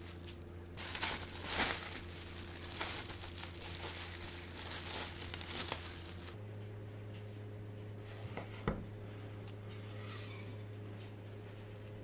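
Plastic cling film crinkling as it is peeled off a crepe roll cake by hand, for about five seconds. It is followed by a single light knock.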